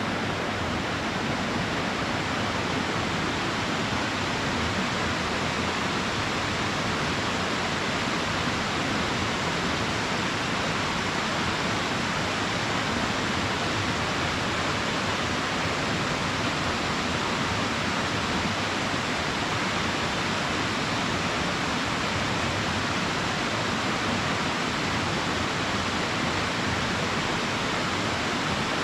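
Small waterfall pouring steadily into its pool, a constant even rush of falling water.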